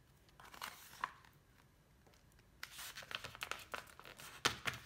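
A sheet of paper being folded and creased by hand, rustling and crinkling in short bursts with a few sharp crackles: a brief flurry about half a second in, then a busier run over the last two seconds.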